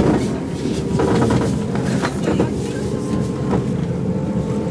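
Running noise inside a JR East 185 series electric train on the move: a steady rumble with a faint steady hum, and a few irregular clicks from the wheels over the track.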